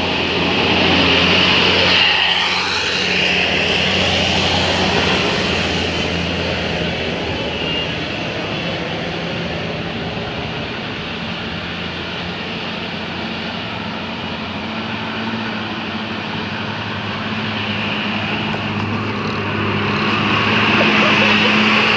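A heavy vehicle's engine running with a steady low drone, louder about a second in and again near the end.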